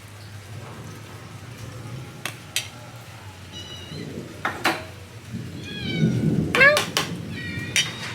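Domestic cats meowing several times, short wavering calls about three and a half seconds in, around six seconds and near the end, over a steady hiss of rain, with a few sharp clicks in between.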